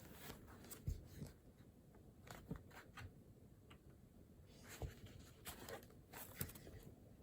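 Faint scratching of a pen or pencil writing on paper, in short irregular strokes with small taps.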